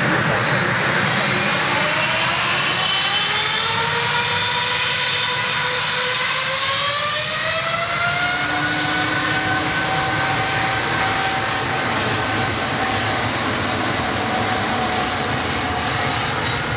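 Boeing 777-300ER's twin GE90-115B turbofans spooling up to takeoff thrust: a whine that climbs in pitch from about two seconds in and then holds steady, over a loud jet roar.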